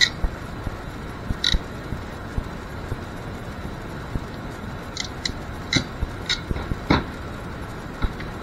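Hand crimping tool squeezing a terminal onto a wire: a scatter of sharp metallic clicks, bunched between about five and seven seconds in, with light handling rustle of the wires between them.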